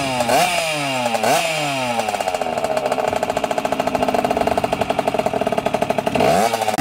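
1983 Honda CR50's 50cc two-stroke engine revved up and down several times in quick succession, then settling to a steady, pulsing idle, with one more rev near the end.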